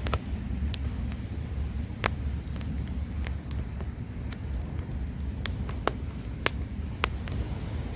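Wood campfire crackling, with a handful of sharp pops scattered through, most of them in the second half, over a steady low rumble of surf.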